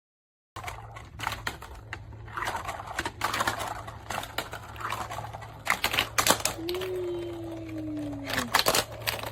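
Irregular clicks and clacks of plastic magnetic tiles and marbles being handled, over a steady low hum. A single falling tone lasts about two seconds in the second half.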